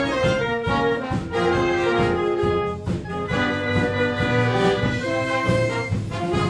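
Concert band of woodwinds and brass playing together, held chords moving from note to note, with a brief dip in loudness about three seconds in.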